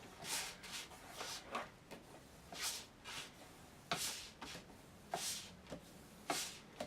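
Paper and cardstock being handled and rubbed by hand: a series of soft, brief rustles, roughly one a second.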